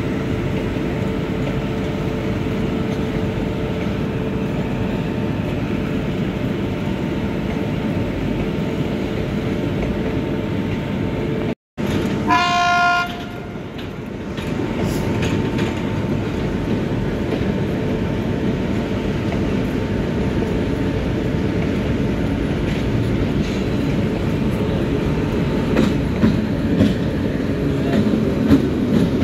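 Diesel locomotive bringing a passenger train in, with a steady engine rumble. A single horn blast of about a second and a half sounds a little under halfway through, and wheel clicks over the rails grow near the end as the train draws closer.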